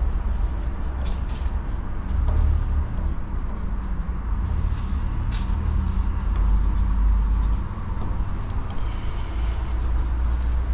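Aerosol spray-paint cans hissing in several short bursts and one longer spray about nine seconds in, over a steady low engine-like rumble.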